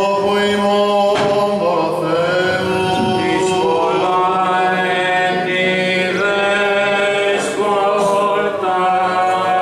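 Byzantine chant sung by male voices in long, drawn-out melodic lines over a steady held low drone note.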